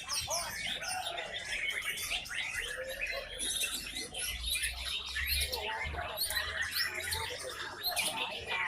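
Several white-rumped shamas (murai batu) singing at once, a dense tangle of fast, overlapping whistles, trills and chirps with no break.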